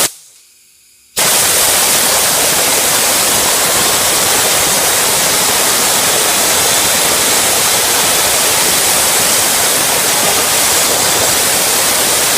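Compressed air from an air compressor hissing loudly and steadily. It starts abruptly about a second in, after a short quiet gap.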